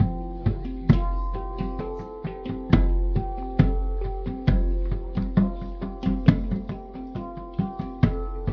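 Live acoustic instrumental music: plucked string notes ringing over a hand drum keeping a steady beat.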